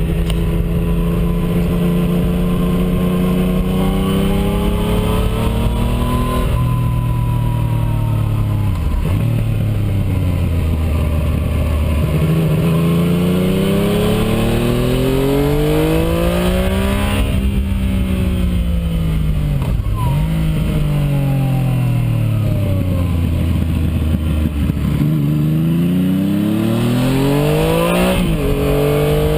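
Yamaha MT-09 inline three-cylinder engine running through an IXIL Hyperlow aftermarket exhaust while the bike is ridden. The engine note rises under acceleration, steps down at gear changes, and falls away as the rider rolls off, several times over.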